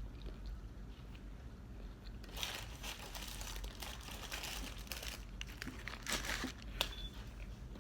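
Fast-food paper packaging being handled and crinkled, in stretches of rustling from about two and a half seconds in, with a few sharp crackles near the end.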